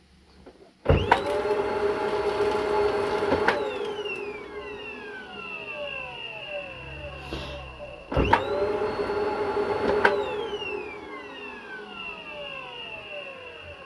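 Arçelik vacuum cleaner motor switched on twice for about two seconds each time. Each time it spins up at once to a steady whine, then winds down with a falling whine after it is switched off.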